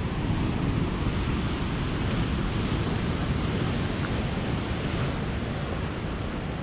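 Ocean surf: waves breaking and washing ashore in a steady rush that eases slightly near the end.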